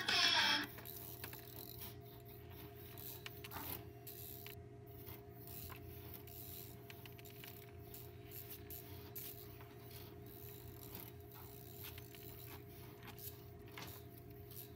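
Music cuts off about half a second in, leaving a faint steady hum with scattered small clicks and ticks.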